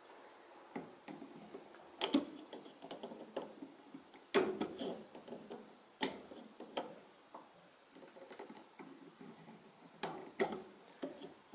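Irregular sharp clicks and ticks from ring expander pliers and a piston ring as the ring is spread and worked down over a Cummins 6.7 diesel piston into its groove.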